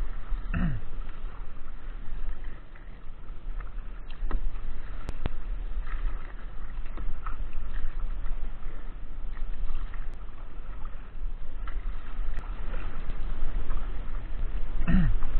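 Kayak on the water: paddle and water sloshing against the hull, under a steady low wind rumble on the microphone. Two brief downward-sweeping sounds, about half a second in and again near the end, stand out above it.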